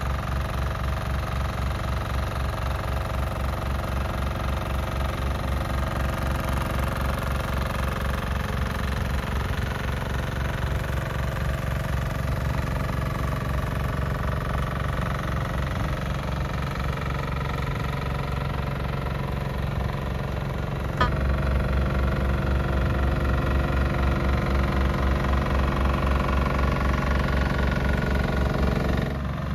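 Small engine of a walk-behind twin-drum vibratory roller running steadily with a rapid pulsing beat while it compacts gravel. A sharp click about two-thirds of the way through, after which the engine is louder.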